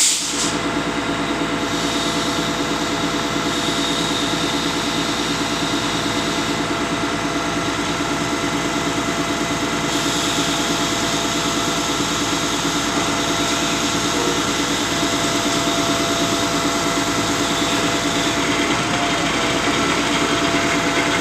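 Concrete pump's engine running steadily, with a brief click at the start.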